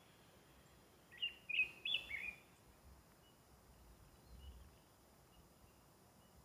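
A songbird sings one short phrase of quick chirps about a second in, followed by a few faint, distant high notes over a quiet background.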